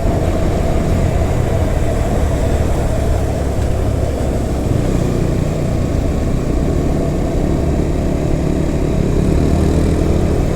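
Motorcycle engine and road noise while riding at steady speed, a constant low rumble.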